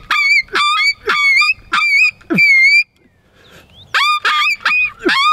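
Closed-reed predator mouth call blown with its barrel off, teeth slid along the reed, giving a coyote ki-yi: a string of short, high yelps that imitate a hurt dog or coyote pup in distress. The yelps break off for about a second midway, then resume in a quicker run.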